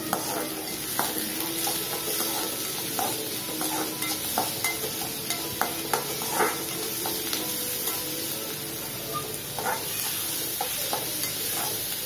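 A perforated metal spatula scraping and clicking against a metal kadai in irregular strokes as chopped onions, chana dal and curry leaves are stirred and sautéed in hot oil, with a steady sizzle underneath.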